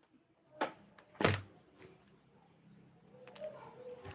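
Two dull thuds a little over half a second apart, then scattered light clicks and rustling as a handheld phone is picked up.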